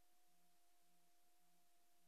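Near silence: an empty soundtrack with only faint steady hiss and a faint steady hum.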